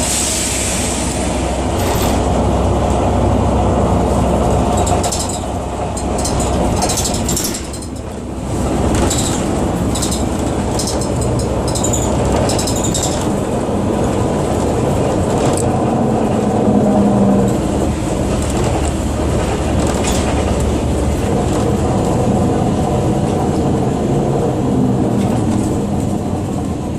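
Iveco Irisbus Citelis city bus running, a steady low diesel and drivetrain rumble with scattered rattles, dipping briefly about five and eight seconds in. The owner describes the motor as struggling.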